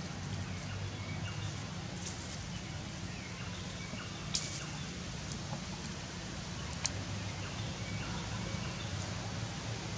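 Forest ambience: a steady low hum with faint scattered bird chirps, and two sharp clicks, one a little before the middle and one about two-thirds through.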